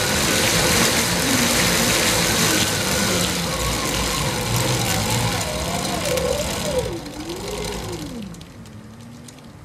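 Pedal-driven car alternator and bicycle wheel spinning with a loud mechanical whir, then winding down as the pedaling stops. Its whine wavers and slides down in pitch while the sound fades, as the alternator slows and its output voltage drops.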